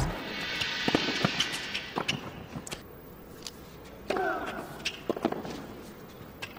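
Tennis rally on a hard court: a string of sharp, irregular hits as the ball is struck by rackets and bounces on the court, with a short squeal about four seconds in.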